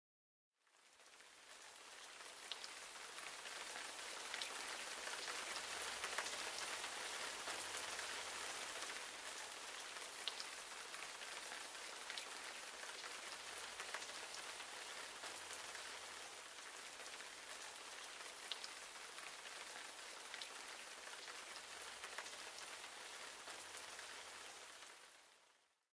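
Steady rain-like hiss with scattered faint ticks. It fades in just after the start and fades out near the end.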